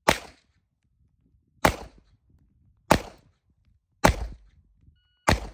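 Handgun fired five times at a steady pace, about one shot every second and a quarter, each shot a sharp report with a short fading tail.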